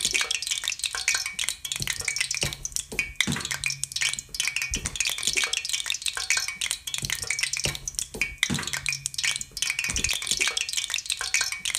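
Sesame oil crackling and sizzling in the wells of a kuzhi paniyaram pan as it heats on a medium gas flame: a dense, irregular patter of small pops with a steady hiss.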